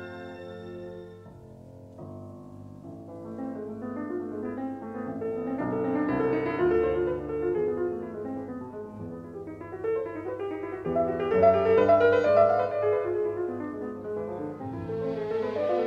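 Piano playing a flowing passage of runs and chords in the slow movement of a Romantic piano concerto, from an old late-1940s recording. It enters quietly about two seconds in after a held chord dies away, swells to louder peaks in the middle, and the texture fills out near the end.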